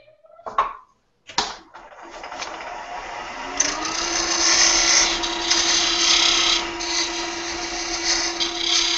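Powermatic wood lathe started after two knocks, its motor whine rising in pitch and then holding steady. From about four seconds in, a narrow turning tool cuts into the spinning cocobolo duck-call blank with a steady hiss, deepening the groove for the lanyard.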